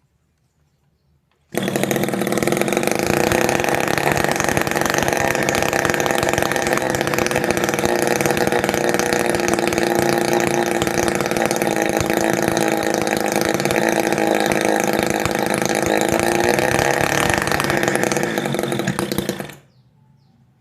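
Homemade mini two-stroke engine built from a refrigerator compressor, running on test. It comes in suddenly about a second and a half in, runs steadily with a slight waver in speed, and dies away shortly before the end.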